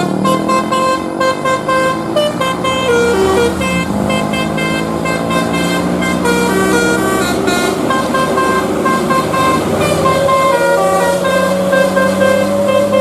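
Indonesian 'basuri' telolet musical bus horn playing a quick tune of short, stepped notes, several pitches sounding together, over the bus engine running underneath.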